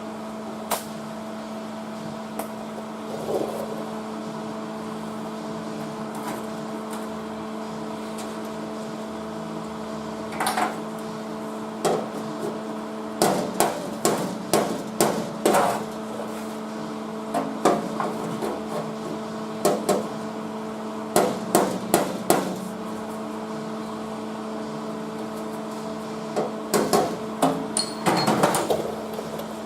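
Welder laying a series of short tack welds on sheet-steel floor panels, each a brief sharp crackle, in irregular clusters over a steady electrical hum.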